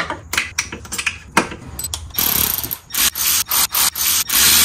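Cordless ratchet running in several short bursts and one longer run, driving in the mounting bolts of a new A/C compressor. A few sharp clicks and knocks of metal parts come in the first two seconds.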